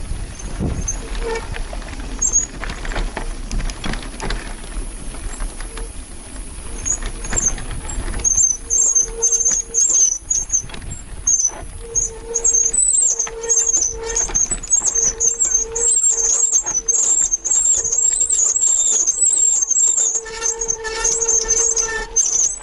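Bicycle brakes squealing on and off while descending: a high, wavering squeal with a lower ringing tone under it, starting about eight seconds in, after several seconds of low rumbling noise.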